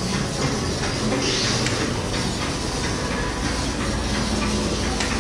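Steady rumbling indoor din with no clear voices, and a short hiss about a second in.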